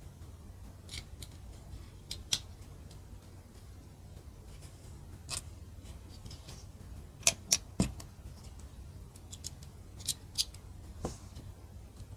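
Small plastic mini building bricks clicking and tapping as they are handled and pressed together: scattered sharp clicks, with a quick run of three about seven seconds in.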